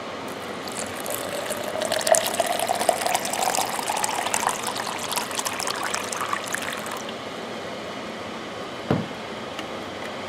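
Water running into a cup of drink powder, its pitch rising as the cup fills; the flow stops about seven seconds in, and a single short knock follows near the end.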